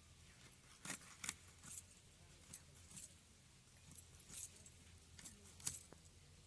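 Irregular light clinks and clicks of kitchen utensils, about a dozen sharp taps spread unevenly over a few seconds.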